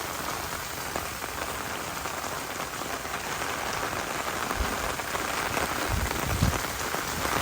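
Steady heavy rain pattering down, with a few low gusts of wind buffeting the microphone about four and a half and six seconds in.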